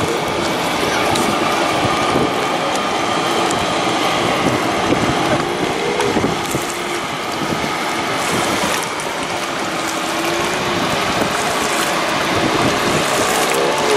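Inland motor tanker barge passing close: a steady rush of water along its hull and bow wave, under a low engine hum that wavers in pitch now and then.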